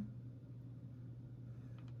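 A steady low hum, with two faint ticks near the end from small metal padlock parts being handled while a spool pin is worked into position.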